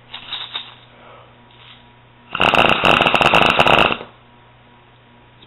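Homemade airsoft machine gun made from a medicine bottle firing a rapid burst of 6 mm BBs, a dense, fast rattle with a high steady tone through it. The burst starts about two seconds in and lasts about a second and a half.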